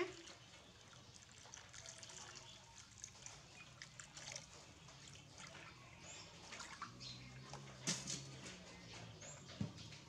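Faint water trickling from a kettle into a plastic basin, then light splashing as hands move in the water, with small drips and clicks. There is a brief louder knock about eight seconds in.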